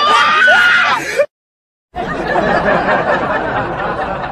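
A high voice cries out for about a second and cuts off into a moment of dead silence, then a dense blur of laughing and chattering voices.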